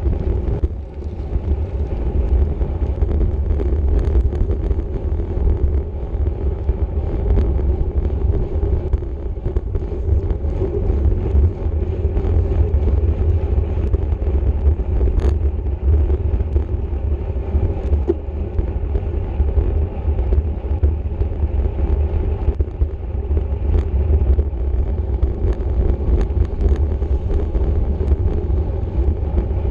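Wind rushing over the microphone of a racing bicycle's camera at race speed. It is a steady, heavy low rumble mixed with tyre and road noise, with a few faint clicks from the bike.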